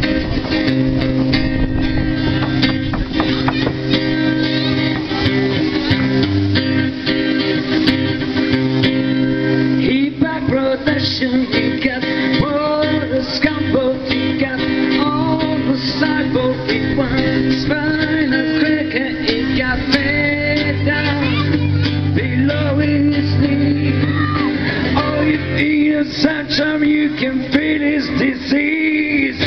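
Amplified live band music led by guitar over a steady bass line.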